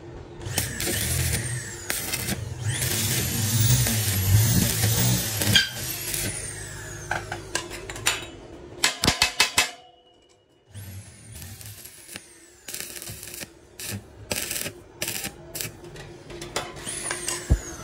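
Stick (arc) welding: the electrode arc crackling and hissing in bursts as round steel tubes are tack-welded to a square-tube frame. There are sharp clicks and a brief silent break about ten seconds in, and a few high falling whistle-like sweeps.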